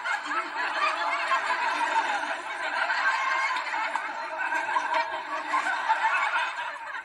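Recorded audience laughter, many voices laughing together at once, played through a laptop speaker with no bass.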